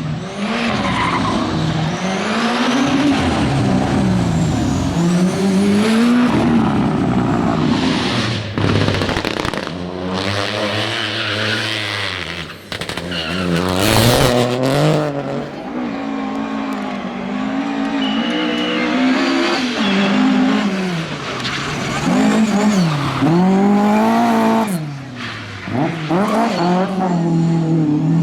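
Rally car engine revving hard on a stage, the pitch climbing and dropping again and again through gear changes and lifts, with a sharp bang about halfway through.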